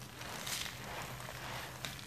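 Hands squeezing and crumbling a dry, powdery sand-and-cement clump, giving a soft, steady gritty crunch.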